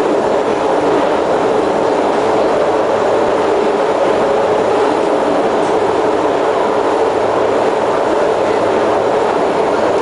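Steady running noise heard inside a Kawasaki C151 MRT train car: wheels on the rails and the train's running gear making a dense, even din with no distinct tones or knocks.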